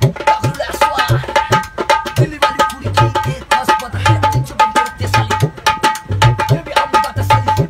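Dholak, a two-headed rope-tensioned barrel drum, played by hand in a fast, steady rhythm: deep booming strokes on the bass head mixed with sharp ringing slaps on the treble head.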